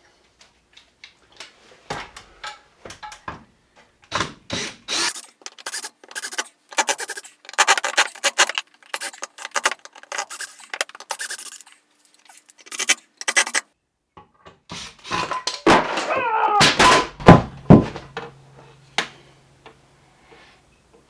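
Hand work on wood and metal parts: a string of knocks, clicks and scrapes. About fifteen seconds in comes a louder scraping clatter with a squeal falling in pitch, then a faint steady low hum.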